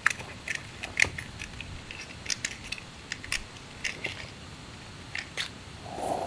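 A matchbox and matches being handled, giving irregular sharp clicks and light rattles, a few each second. A softer scuffing sound comes in near the end.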